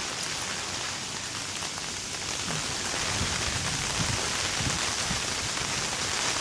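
Steady, heavy hurricane rain falling.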